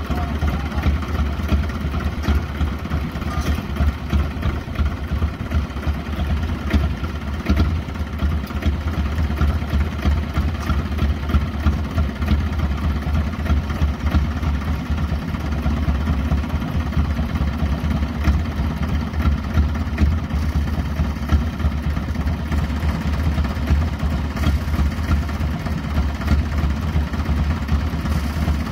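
Tractor diesel engine running steadily, driving the rear crane boom and post hole digger attachment.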